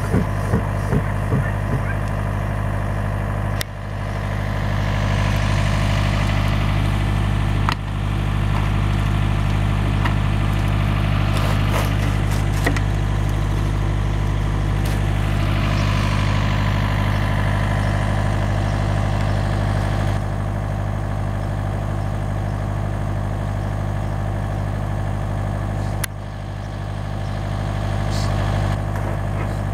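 Engine idling steadily, a low even hum that dips briefly at a few points.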